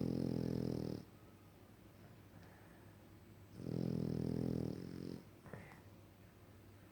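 French bulldog snoring: a snore that ends about a second in, then another about three and a half seconds in that lasts a second and a half, followed by a short rising squeak.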